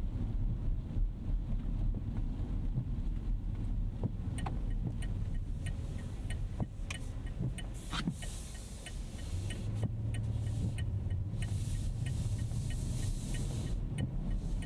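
Inside the cabin of a 2025 Rolls-Royce Ghost Series II on the move in rain: a steady low road and engine rumble that swells about ten seconds in. Midway there is a run of light, evenly spaced ticks, with stretches of hiss.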